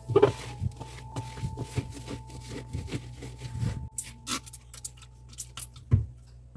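Scattered clicks, knocks and rubbing of objects being handled during refrigerator cleaning, with a louder knock near the start and another about six seconds in.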